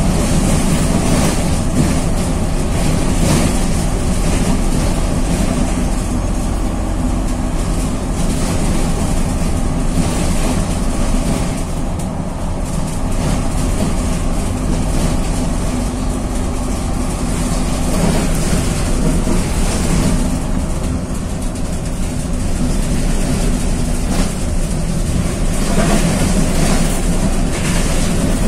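Diesel engine of a VW 26.330 OTA city bus running under way, heard from inside the rear of the passenger cabin with a steady low hum and road noise. The engine note eases off twice and picks up again near the end.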